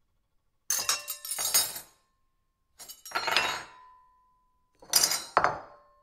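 Metal cutlery (fork, knife and spoon) clattering against a plate in three bursts, each a quick run of clinks followed by a short metallic ring.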